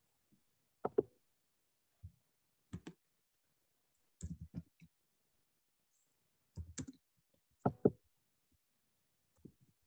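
Sporadic clicks and soft knocks from computer work at a desk, keyboard and mouse, heard over a video-call microphone: about a dozen short taps in irregular clusters, the sharpest near the first second and near the end, with dead silence between them where the call's noise suppression cuts the mic.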